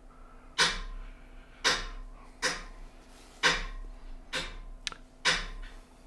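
A dog giving short, sharp snorts, about one a second, each a sudden huff that fades quickly.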